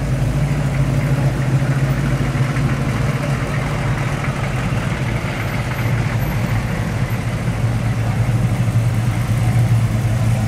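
Classic V8 cars and pickups idling and creeping past at walking pace, a steady low exhaust rumble. It swells a little near the end as a red square-body Chevrolet pickup rolls up close.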